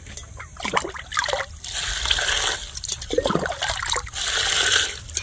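Water poured from a steel lota, splashing and trickling into a tub of water as spinach is rinsed, in two pours of about a second each.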